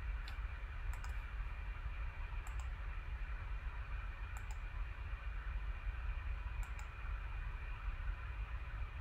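Computer mouse button clicking while points are placed on a spline sketch, about five separate clicks, each mostly a quick press-and-release pair, over a steady low hum.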